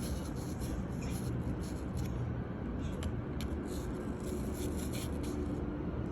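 Knife cutting into an apple: faint scraping and light clicks over a steady low background hum.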